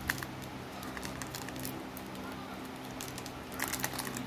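Faint crinkling and clicks of a foil Pokémon trading-card booster pack being handled and torn open, with a cluster of crackles near the end, over a steady low hum.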